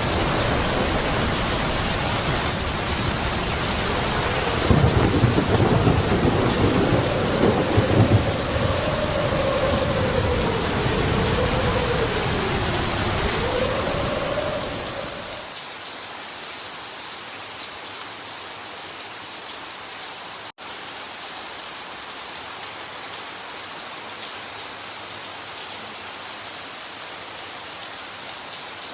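Heavy rain pouring down, with thunder rumbling about five to eight seconds in and a long wavering tone underneath. About halfway through it changes abruptly to lighter, steady rain.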